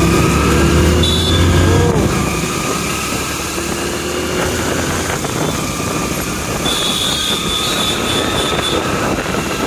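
Road and wind noise from a moving motorcycle in traffic, with a low engine hum that is strongest in the first two seconds and a thin high tone for a couple of seconds in the second half.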